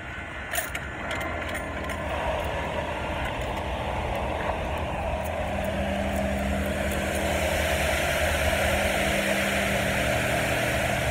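Self-serve car wash pressure washer running: a steady hiss of water spray that builds over the first few seconds, over a low steady hum.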